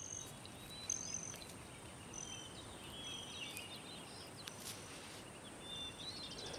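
Faint rural outdoor ambience: birds calling in short high chirps and whistles, with a quick trill near the end, over a steady high-pitched insect drone.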